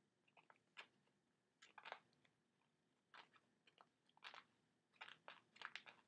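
Faint short scratchy rustles, a few at a time about every second: a small pet bird's claws and beak gripping cloth drapes as it climbs them.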